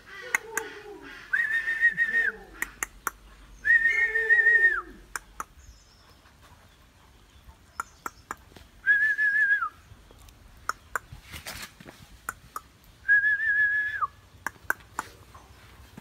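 A person whistling four short held notes, each about a second long and falling off at the end, with sharp clicks scattered between them.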